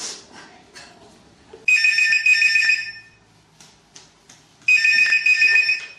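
Landline telephone ringing: two trilling electronic rings, each about a second and a quarter long, about three seconds apart.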